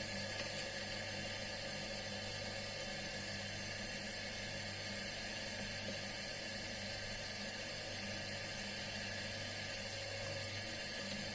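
Drill press motor running steadily with an even whirring hum while drilling out the rivets of a Victorinox pocket knife.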